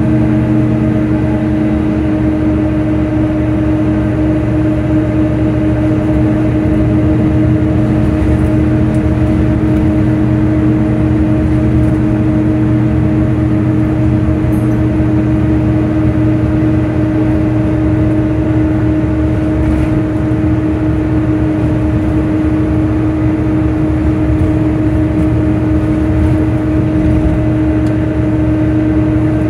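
Volvo B9TL bus's engine cooling fan running loudly with a steady, unchanging whine, over engine and road rumble as the bus travels at a steady speed.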